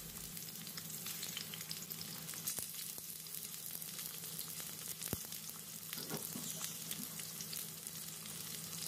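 Pieces of raw oxtail frying in hot oil in a karahi: a steady sizzle with fine crackling and spitting of the oil, and one sharp click about five seconds in.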